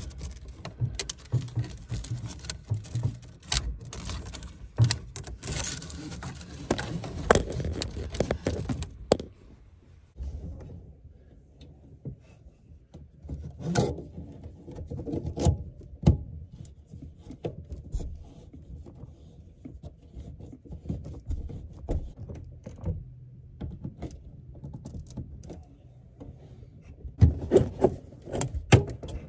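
Handling noise of hands working braided faucet supply hoses and their fittings in a cramped under-sink cabinet: dense rustling and clicking for the first nine seconds, then scattered knocks, with a cluster of louder knocks near the end.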